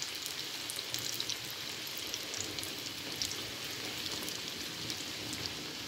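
Rings of yeast dough (pişi) deep-frying in hot oil: a steady sizzle dotted with small pops and crackles.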